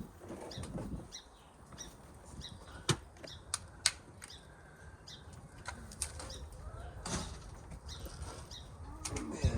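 Backyard hens moving about, with scattered short high chirps and three sharp taps in a quick group a few seconds in, over a low rumble.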